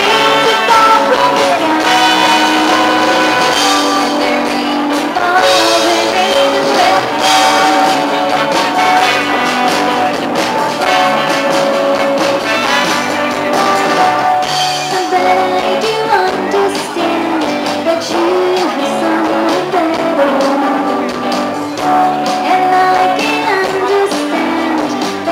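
Live amplified band playing a pop song, a woman singing lead over electric guitars, bass guitar, keyboard and drums.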